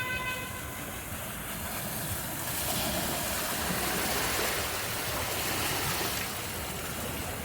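A vehicle driving through floodwater: a broad rush of surging, swishing water and tyre noise that swells to its loudest in the middle and then eases off. A vehicle horn beeps briefly right at the start.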